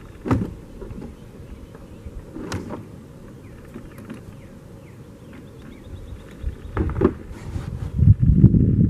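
Handling noise in a kayak: a few separate knocks and taps, with louder low rustling and bumping building near the end.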